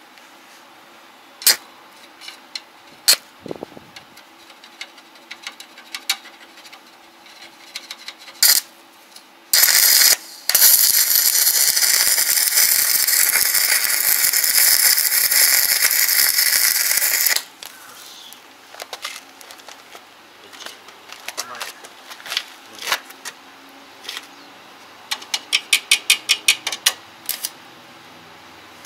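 Electric arc welding on a steel frame: a steady crackling hiss of the arc for about eight seconds in the middle, broken once near its start. Scattered sharp metallic clicks come before and after it, and a quick run of ringing metal taps comes near the end.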